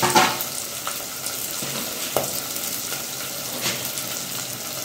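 Chopped onions and curry leaves sizzling steadily in hot oil in an earthenware pot as they are sautéed and stirred with a wooden spatula. The spatula knocks against the pot three times.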